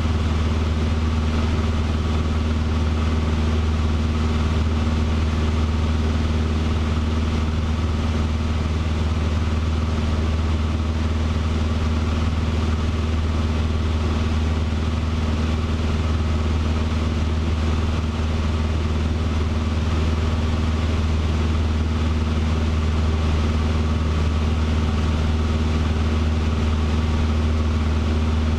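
Cessna 150's four-cylinder Continental O-200 engine and propeller droning steadily in cruising flight, heard inside the cockpit. The pitch and level stay constant.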